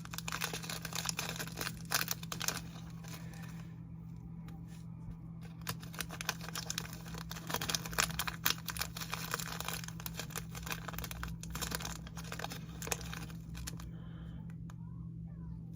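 Small plastic packets crinkling and rustling as they are handled and torn open, with scattered sharp crackles throughout and two quieter pauses. A steady low hum runs underneath.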